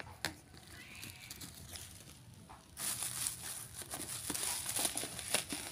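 Plastic bubble wrap around a gift box crinkling and rustling as hands handle it. It is faint at first, then a steady run of small crackles starts about three seconds in.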